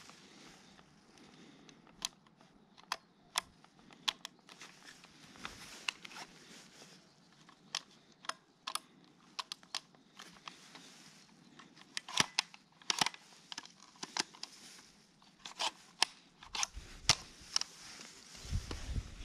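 Handling noise from a CYMA CM.041SD6 airsoft MP5 SD6 replica as it is turned over in the hands: scattered sharp clicks and light knocks of its parts, bunched together a little past the middle. A low rumble builds near the end.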